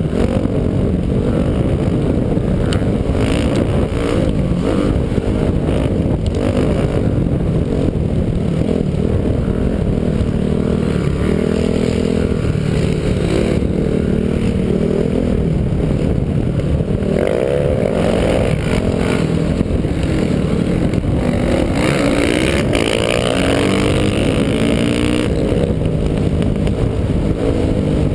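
Honda motocross bike's engine running hard under the rider, its pitch rising and falling over and over as the throttle opens and closes and the gears change.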